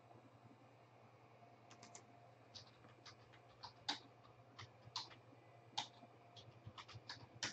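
Faint typing on a computer keyboard: irregular keystrokes starting a couple of seconds in.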